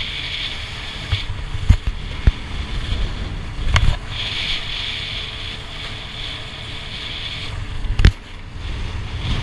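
Steady low hum and hiss inside a boat's mess room, with about four sharp knocks and clinks of bowls, plates and cans on the table.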